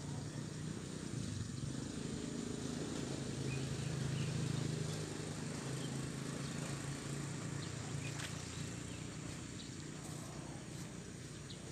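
A distant engine's low steady hum, swelling about four seconds in and easing off, with a few faint ticks over it.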